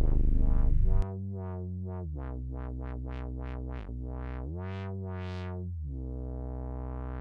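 Electronic synthesizer music: a loud passage drops out about a second in, leaving a synth line whose notes each brighten and dull again, with a long brightening swell near the end.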